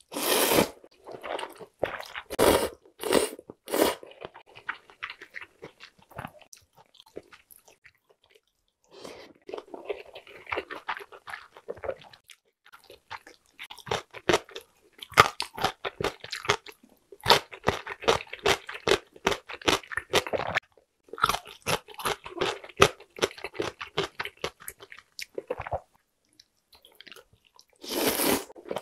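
Close-up eating sounds: thin noodles slurped from a bowl of broth at the start and again near the end, with chewing in between. From about 14 s in there is a quick run of crisp crunches from chewing pickled radish.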